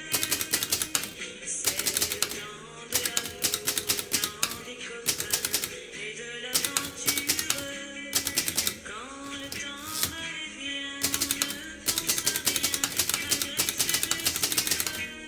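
Smith & Corona manual typewriter being typed on: rapid runs of key strikes, each about a second long, with short pauses between them. Background music with singing plays underneath.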